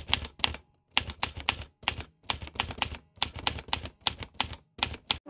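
Rapid key clicks of typing, in short irregular runs with brief silent pauses between them.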